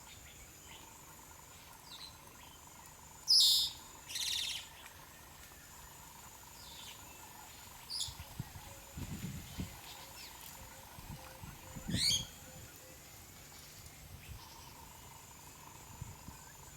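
Senegal parrot giving a few short, harsh screeching calls spaced several seconds apart, the loudest two close together about three seconds in, with a few dull low thumps between the calls.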